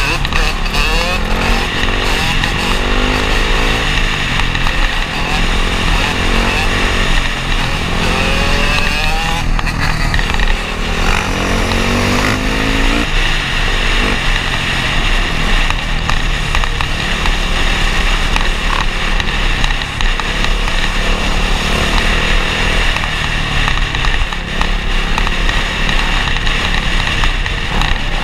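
Dirt bike engines running at speed, the nearest bike's engine climbing in pitch several times in the first half as it accelerates, then holding a steadier drone.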